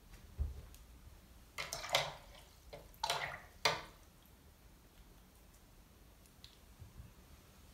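Watercolour brush being wetted and worked into paint: two short bursts of wet swishing and scrubbing, after a low knock on the table about half a second in.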